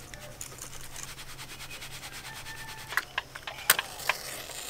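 Atta flour being sifted through a plastic mesh sieve, shaken over a steel plate: a fast, even, soft rasping. About three seconds in it gives way to a few sharp clicks and a scratch, which fits a matchstick being struck.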